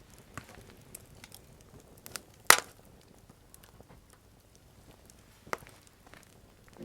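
Scattered sharp clicks and knocks over a faint background, one much louder about two and a half seconds in and another about five and a half seconds in.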